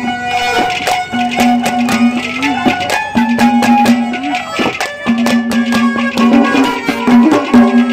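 Instrumental interlude of live Haryanvi ragni folk music: a melody in long held notes, some bending up at their ends, over fast, busy drum beats.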